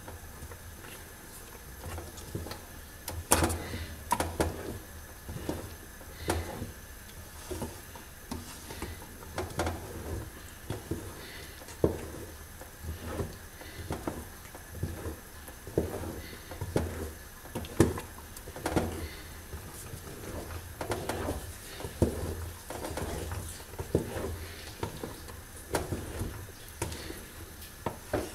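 Wooden spoon stirring thick, bubbling zrir (ground sesame and hazelnut cooked in sugar syrup) in an aluminium pot, knocking and scraping against the pot in irregular strokes, roughly one a second. The bubbling shows the paste is cooked and ready to come off the heat.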